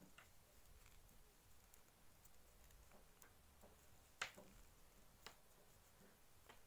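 Knitting needles clicking faintly now and then as stitches are worked, over near silence; the clearest click comes a little after four seconds in.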